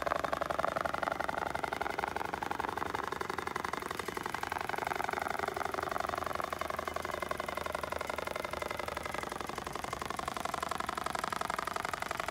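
Dematron DM-1280 computer-controlled industrial pattern sewing machine stitching a curved seam through upholstery material at speed. Its servo drive motors hum under a rapid, even run of needle strokes, and the pitch rises and falls slightly as the head follows the curve.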